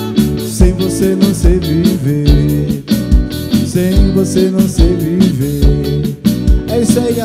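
Live band music: electric guitar and bass guitar over keyboard and a drum kit keeping a steady beat.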